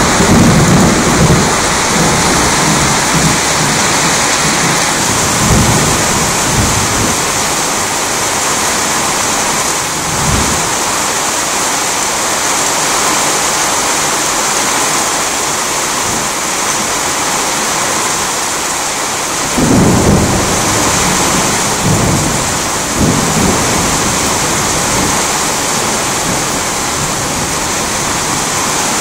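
Heavy rain falling steadily, with thunder rumbling at intervals: a roll right at the start, fainter ones a few seconds later, and the loudest one about twenty seconds in, followed by another shortly after.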